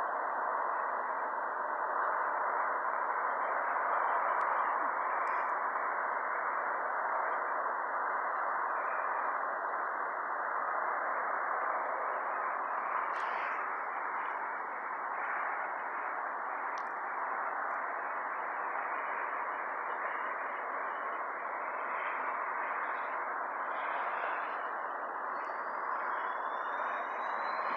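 Eurocopter EC135 T2+ helicopter running on the helipad with its rotor turning: a steady rushing noise. About two seconds before the end a rising whine sets in as the turbines spool up for takeoff.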